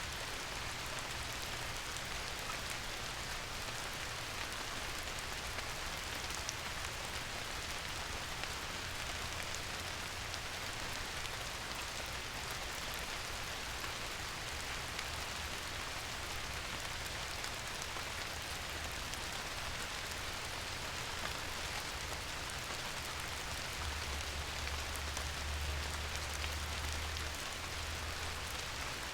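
Steady rain falling, an even hiss of many drops on a surface. A low rumble underneath swells for a few seconds near the end.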